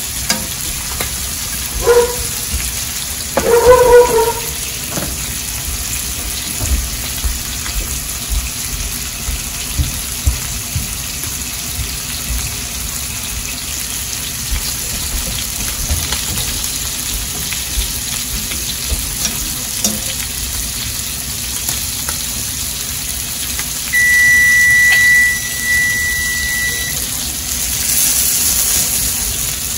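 Scallops searing in butter in a nonstick frying pan: a steady sizzle, with a couple of knocks from the fork against the pan in the first few seconds. Later a steady high beep sounds for about three seconds, and near the end the sizzle flares louder.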